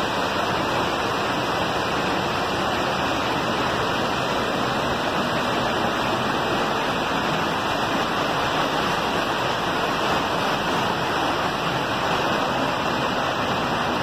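Waterfall pouring into a plunge pool, a steady rush of falling water.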